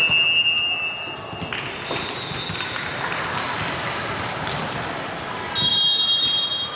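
Referee's whistle: one long steady blast of about a second and a half, then a shorter, higher blast about five and a half seconds in, over background chatter of players and spectators.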